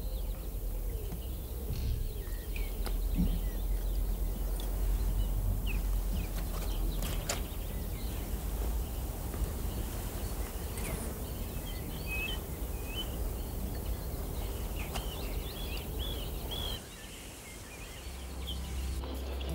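Outdoor ambience: a steady low rumble with small birds chirping and a few light clicks of handling; the rumble drops away near the end.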